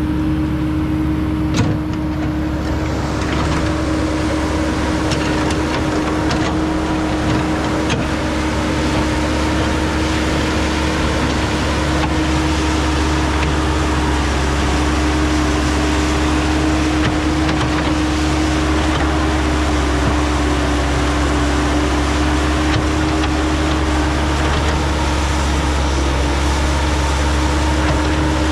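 Caterpillar 312 excavator's diesel engine running at a steady speed, a constant droning hum that does not rise or fall, with a few light clicks in the first couple of seconds.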